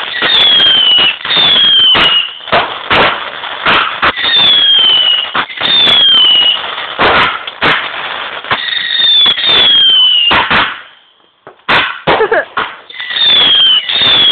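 Garden fireworks going off in quick succession: a run of sharp bangs and crackles, with many short whistles that fall in pitch. There is a brief lull about two-thirds through before the bangs and whistles resume.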